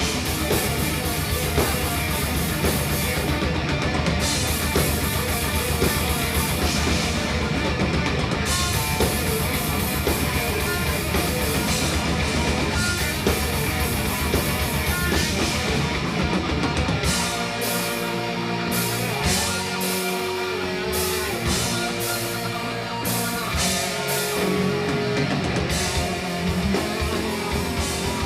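Live thrash metal band playing loud: distorted electric guitars, bass and drum kit together. About 17 seconds in, the bass and drums thin out and a guitar riff with held notes comes to the fore.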